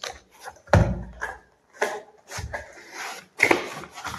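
A cardboard product box being opened and its packaging handled by hand: several knocks and a deep thud, the loudest just under a second in, with sliding, scraping and rustling between them.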